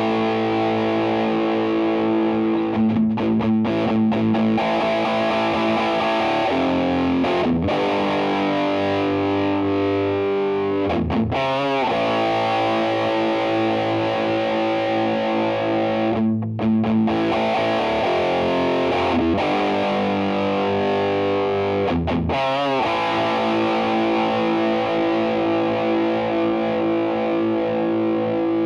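Electric guitar, a Yamaha Studio Lord Les Paul copy on its vintage Japanese PAF humbucker bridge pickup, played through a Vox AC30 with overdrive. Ringing distorted chords change every few seconds, with a couple of wavering, bent notes along the way.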